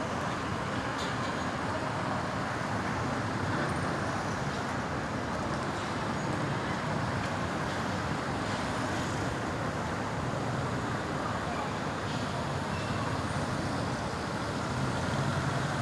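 Steady road traffic noise, with no siren sounding.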